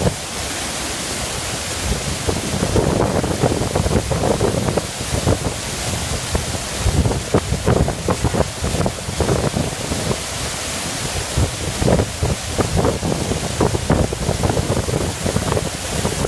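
Water pouring down a stepped stone cascade wall close by: a loud, steady rush with an uneven low rumble underneath.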